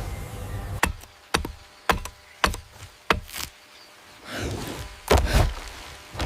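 A series of five sharp thuds about half a second apart, followed by two longer rushing, thrashing sounds.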